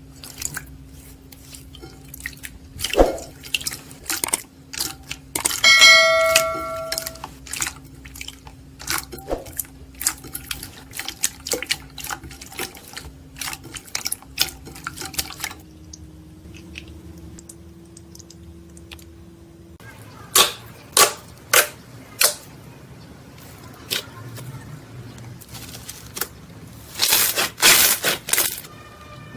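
Slime being squeezed and poked by hand, making many sticky clicks and wet pops, with a short pitched tone about six seconds in.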